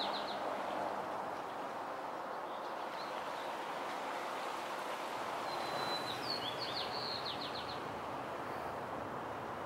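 A songbird sings a high phrase, a held note followed by a quick run of short down-slurred notes, once trailing off at the very start and again about six seconds in. Under it runs a steady outdoor background hiss.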